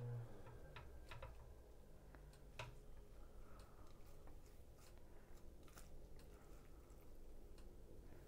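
Metal kitchen tongs clicking and tapping against a glass container and a plate as cooked kale and bok choy are lifted and dropped in: a dozen or so faint, irregular clicks.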